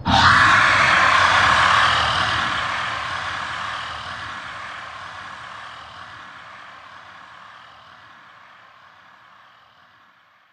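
Movie sound effect of a giant sea monster's roar: a loud rushing blast that starts suddenly, then fades away steadily over about ten seconds.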